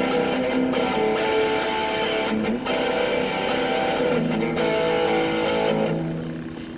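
Electric guitar played through an amp with distortion on, strummed chords ringing out and changing every second or two, the sound dying away near the end.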